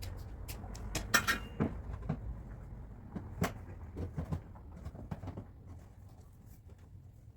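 Irregular light knocks and clinks of tools on metal, a dozen or so short strikes spread out and growing sparser toward the end.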